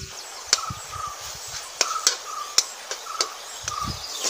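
A metal spatula stirs and scrapes onions frying in an aluminium kadai, giving sharp clinks against the pan over a faint sizzle. Short squeaky notes at one pitch recur between the clinks.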